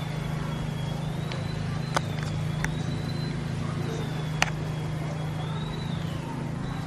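Steady low mechanical hum with a faint high whine that slowly wavers up and down in pitch, broken by three short sharp clicks.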